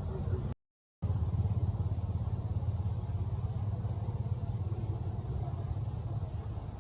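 Steady low rumble with a faint haze of noise above it, broken near the start by a half-second gap of total silence.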